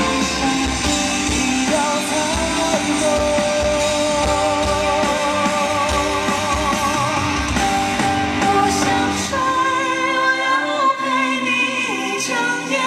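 High-voiced male singer holding long notes with vibrato, sung live over a full band with drums and bass. About nine and a half seconds in, the drums and bass drop away, leaving the voice over lighter accompaniment.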